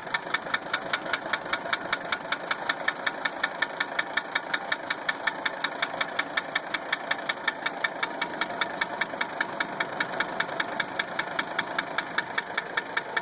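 Mercedes 300SD's five-cylinder OM617 turbodiesel idling steadily with a sharp, regular knock about five times a second. Its number two injector line is cracked open to find which cylinder makes the noise, and the owner suspects injector nailing.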